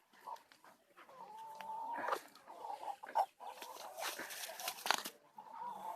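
A chicken sick with ngorok, the respiratory disease that makes poultry breathe with a snoring rattle, calling with a drawn-out note for about a second and a half. Scattered sharp sounds follow, then a second of harsh, noisy sound near the end.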